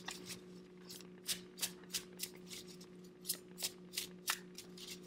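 A deck of cards being shuffled by hand, overhand: a string of short, soft card slaps and flicks at an uneven pace, a few a second, over a faint steady low hum.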